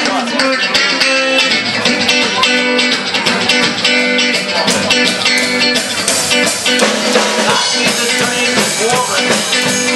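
Live rockabilly band playing an up-tempo number: strummed acoustic guitar, electric guitar and upright double bass, with a steady clicking beat.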